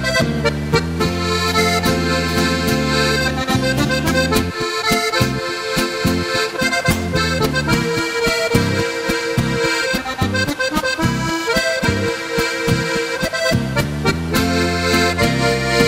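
Instrumental interlude of a traditional Alpine folk song, led by accordion playing held chords and melody. Through the middle a bouncing oom-pah bass-and-chord beat carries it.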